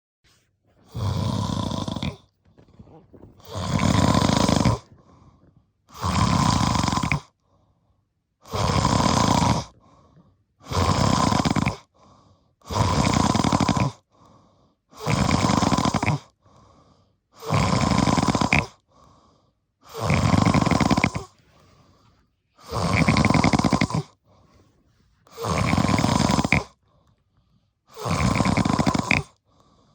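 A person snoring deeply and regularly: about twelve loud snores, each lasting around a second and a half, with quiet gaps between breaths.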